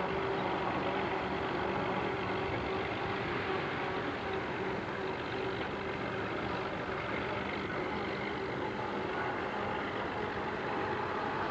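Diesel engine of a small center-cab industrial switcher locomotive running steadily, a constant low hum with a steady higher tone over it.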